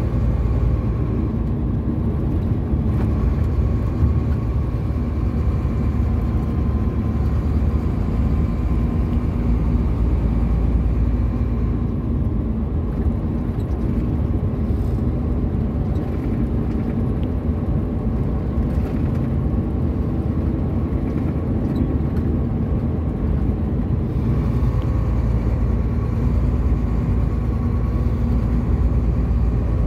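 Tractor-trailer's diesel engine running steadily under way, with road and tyre noise heard inside the cab. The low rumble eases a little about midway and builds again near the end.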